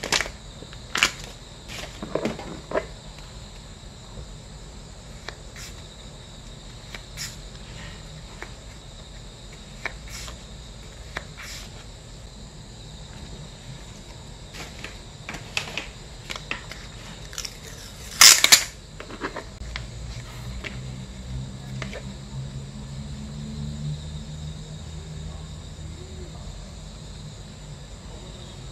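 Clear plastic photocard sleeves and cards being handled: scattered soft crinkles and clicks, with one louder crinkle about two-thirds of the way through. A low hum comes up in the background over the last third.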